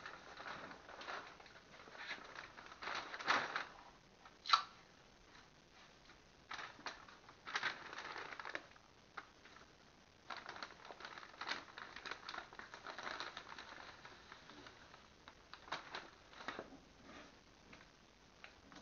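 Faint, irregular rustling and handling noises from a person moving about and handling things, with a sharp click about four and a half seconds in.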